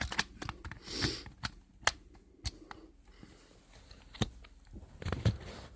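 Plastic smoke detector handled close to the microphone: scattered sharp clicks and taps with a brief rustle about a second in, and the loudest knocks near the end.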